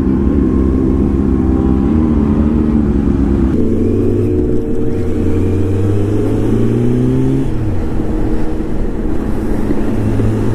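Motorcycle engine heard from the rider's seat while riding. Its pitch climbs steadily under acceleration and drops sharply at gear changes about four and eight seconds in, over steady wind and road noise.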